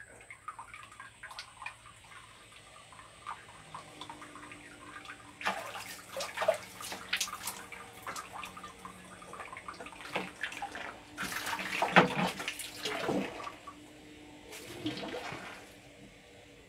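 Water splashing while a person bathes, in three louder bouts about five, eleven and fourteen seconds in, with quieter scattered wet sounds between.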